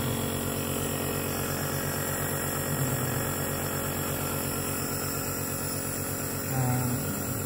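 Electric nebulizer compressor running steadily with an even motor hum, driving the medicine mist during a breathing treatment.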